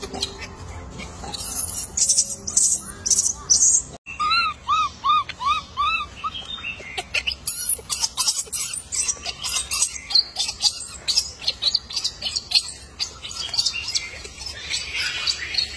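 Birds chirping and calling in dense, rapid high chirps, with a run of five short arching calls just after a brief break about four seconds in.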